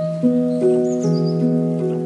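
Background instrumental music: a gentle melody of held, ringing notes that change about every half second, with a new phrase starting as it begins.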